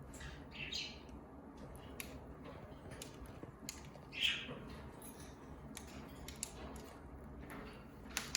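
A small pet conure making faint scattered clicks with its beak and two soft, short squawks, one about a second in and one about four seconds in.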